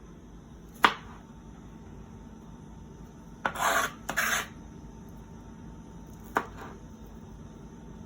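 Kitchen food-preparation sounds: a sharp click, then two short scraping rasps in quick succession about three and a half seconds in, and another click near the end.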